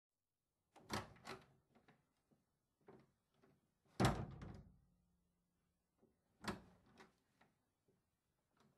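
A door being opened and closed several times with different force: latch clicks and knocks, the loudest shut about four seconds in and another firm shut about six and a half seconds in, with lighter clicks between.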